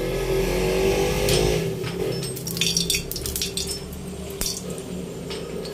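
A metal spatula clinking and scraping against a steel wok of heating oil, with a few sharp light clicks around the middle, over a steady low background hum.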